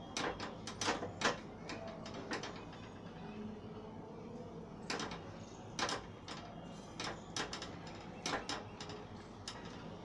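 Spoon scraping and clicking against a steel kadhai as ghee is stirred into gram flour (besan), in irregular bursts of strokes with a pause in the middle.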